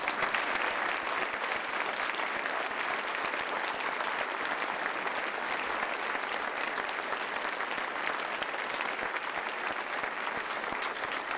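A large audience applauding, a dense, steady clapping that starts at once and holds at an even level.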